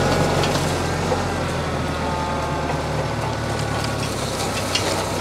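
TYM compact tractor's diesel engine running steadily at a constant speed.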